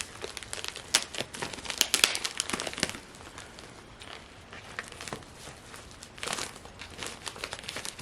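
Plastic packaging bag crinkling as it is handled, in irregular crackles. Busiest over the first three seconds, with another flurry a little past six seconds.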